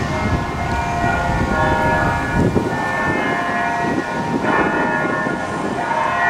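Bells ringing, with many overlapping ringing tones that hang on and are renewed by fresh strokes every couple of seconds. A low rumbling noise runs underneath.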